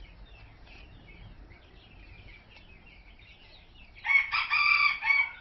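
Faint, scattered chirps of small birds, then a loud, pitched call from a gamebird, rooster-like, starting about four seconds in and lasting about a second and a half.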